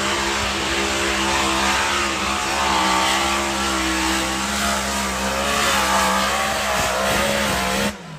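Pulling tractor's engine running hard at high revs, a loud, steady roar whose pitch holds mostly level and wavers slightly, cutting off abruptly near the end.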